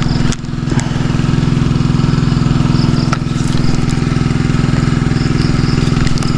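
Small engine running steadily at one constant speed, a low even hum, with a few short high chirps over it.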